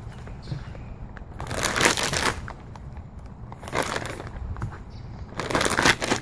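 Plastic zip-top bag crinkling in three bursts as raw chicken thighs are pushed into it by hand.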